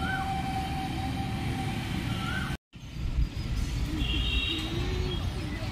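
Outdoor ambience beside a road: a steady low rumble of traffic, with a few short chirps in the first half. The sound drops out for an instant just before the middle, at a cut, then the rumble carries on.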